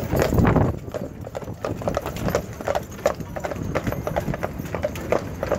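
Shod hooves of Clydesdale heavy horses clip-clopping on tarmac at a walk, in many overlapping irregular knocks, with a brief louder low rumble in the first second.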